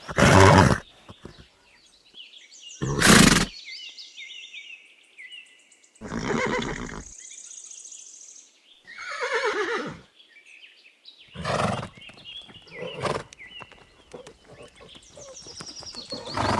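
Horse whinnying repeatedly, about six separate calls, the one around nine seconds in sliding down in pitch.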